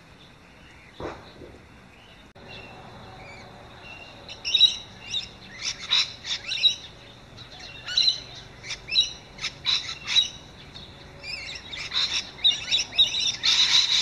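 Rainbow lorikeets giving short, shrill screeching calls in quick succession, starting about four seconds in and growing busier and louder toward the end.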